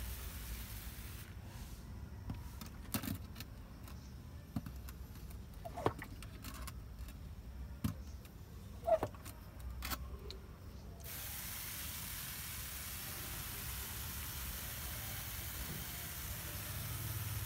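Garden hose spray nozzle hissing as it sprays water onto potted seedlings. The spray stops about a second in, leaving a few clicks and short squeaks, then hisses steadily again from about two-thirds of the way through.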